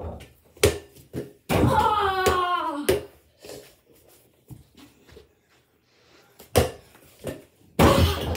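Sharp knocks of a small ball on an over-the-door mini basketball hoop and the door. A drawn-out shout comes about a second and a half in. Near the end a dunk slams the hoop and rattles the door.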